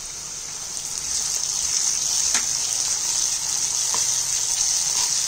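Onions and ginger-garlic paste sizzling in hot oil in a non-stick kadai, a steady high hiss that grows louder about a second in as they are stirred with a wooden spatula, with a couple of faint spatula taps.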